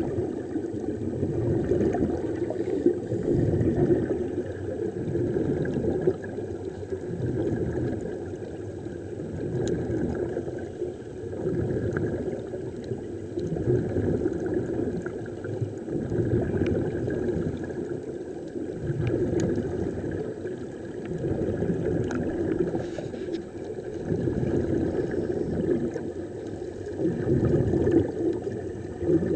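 Muffled underwater bubbling and water rush picked up by a submerged camera, swelling and easing every two to three seconds.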